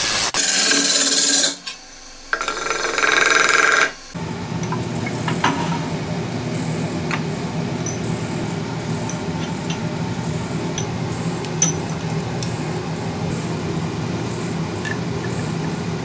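Turning gouge cutting a spinning pine blank on a wood lathe: a loud shaving hiss for about four seconds, broken by a short pause. It then gives way to a steady, quieter machine hum with a few light clicks from handling the workpiece.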